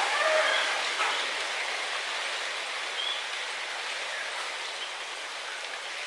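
Steady hiss of strong wind rustling through tree leaves, slowly easing, with a few faint short high chirps.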